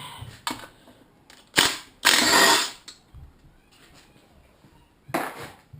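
Metal clattering from hand work on a wrecked LS V8 engine: a sharp clank about one and a half seconds in, a loud rattling burst just under a second long right after, and another shorter one near the end.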